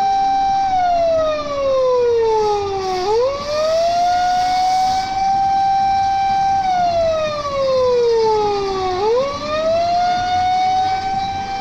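Electronic siren wailing from the police-styled Labor carrier truck: a tone held high, then sliding down for about two seconds and jumping quickly back up, twice. It sounds as the warning signal while the life-size robot is raised on the trailer.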